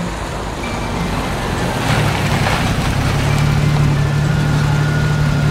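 A vehicle engine rumble, a sound effect, swelling up over the first couple of seconds and then running steadily with a low hum.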